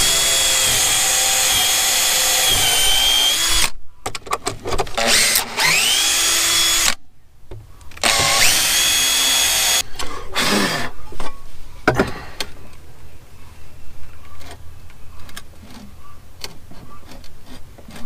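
Makita cordless drill drilling into a wooden board in three runs, each winding up to a steady high whine. After the drilling stops, scattered knocks and clunks as the pump is moved about on the wooden boards.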